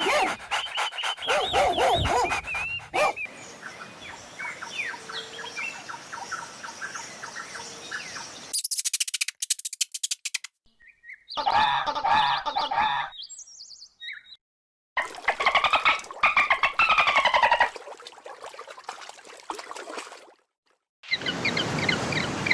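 Birds chirping and calling in a string of short clips joined by abrupt cuts, with quick repeated chirps and trills.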